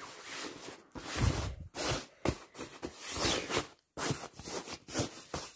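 Rustling and scraping of fabric and plastic packaging in a run of irregular bursts, with a soft bump about a second in, as a pushchair carrycot mattress is handled and pressed into the carrycot.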